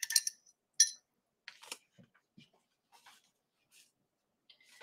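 A few faint, short scrapes and taps in the first two seconds: a paintbrush being rinsed in a water cup and wiped off.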